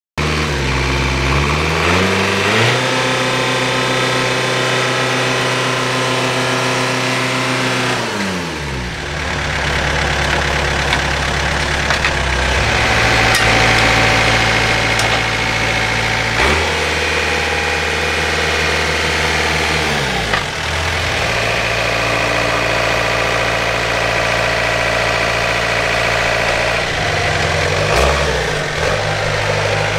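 Fiatagri tractor's diesel engine running, revving up and holding high revs for several seconds, then dropping back, several times over.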